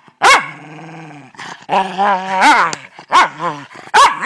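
Small dogs barking and growling in rough play: a sharp bark drawn out into a long growl, a growl that rises and falls around two seconds in, then three quick barks near the end.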